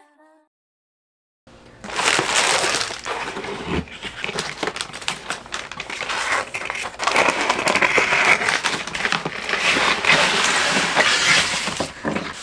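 Paper pizza liner crinkling and rustling, with the cardboard pizza box scraping and flexing, as a pizza is slid out of the box and the box is pulled away. It starts about a second and a half in as a dense crackle of many sharp clicks.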